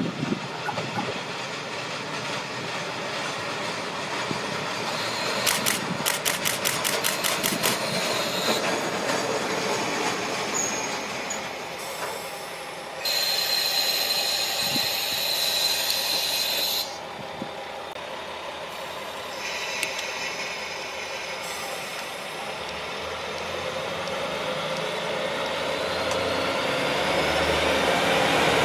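KiHa 40 series diesel railcar train approaching and passing close by, its diesel engine and running gear growing steadily louder over the last several seconds. A burst of rapid ticking comes about six seconds in, and a louder steady sound with a high tone lasts a few seconds in the middle.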